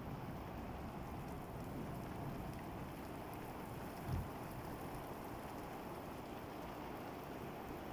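Heavy rain falling steadily on a concrete rooftop, with one brief low thump about halfway through.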